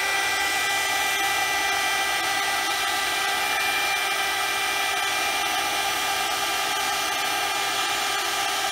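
Small handheld heat gun running steadily: its fan motor whirring under an even rush of blown hot air, as it shrinks heat-shrink tubing over an XT60 plug's soldered terminals.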